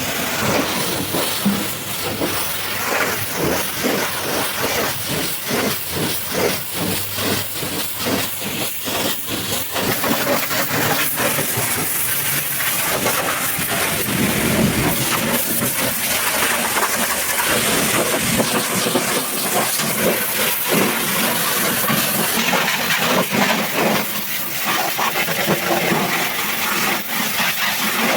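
High-pressure washer jet spraying water against a truck: a loud hiss, choppy and spattering for the first ten seconds or so, then steadier and brighter.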